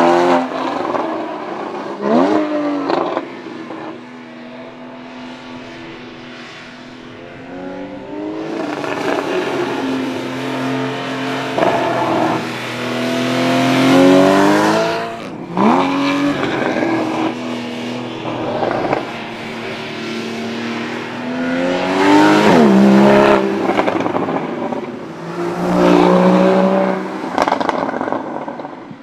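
2015 Porsche Boxster GTS's 3.4-litre flat-six engine and exhaust being driven hard, its pitch climbing and falling repeatedly as it accelerates and shifts. There are sharp, quick rev flares about two seconds in, around sixteen seconds and around twenty-three seconds.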